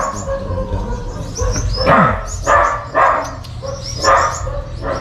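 A dog barking, about five barks spaced half a second to a second apart, over short high chirps of caged birds.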